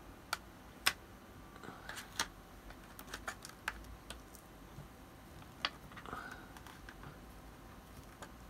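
Irregular light clicks and taps of hard plastic as two Yuasa NP7-12 sealed lead-acid battery cases and their plastic connector bracket are handled and pressed together, about a dozen in all, with a little faint rustling between them.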